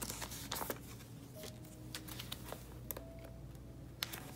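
Faint rustling and scattered light clicks of a photocard being handled and slid into a plastic binder sleeve.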